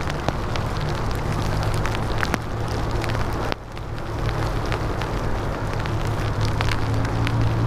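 Bicycle tyres rolling over wet pavement in the rain: a steady hiss of water with a crackle of drops and spray, over a low wind rumble on the microphone. The noise dips briefly about three and a half seconds in.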